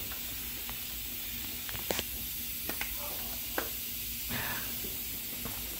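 Steady hiss with a handful of scattered light clicks and knocks, and a brief rustle past the middle, as hand tools are handled while a mower's belt guard is being taken off.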